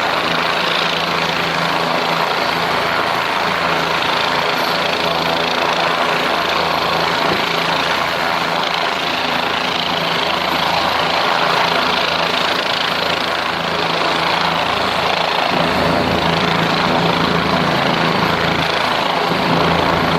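Medical helicopter running, a loud steady drone; about three-quarters of the way through, its low drone grows stronger.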